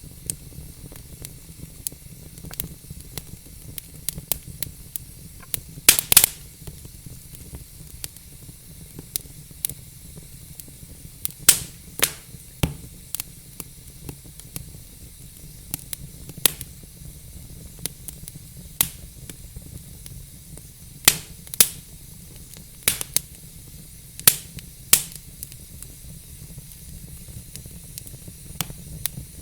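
Wood fire burning in a fireplace: a steady soft hiss with irregular crackles and sharp pops from the burning logs, a cluster of loud pops about six seconds in and several more later.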